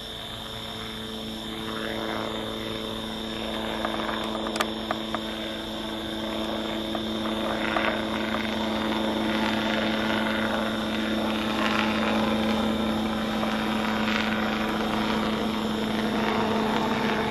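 Helicopter's rotor and engine drone, a steady hum on a few fixed pitches, growing louder through the first half and then holding.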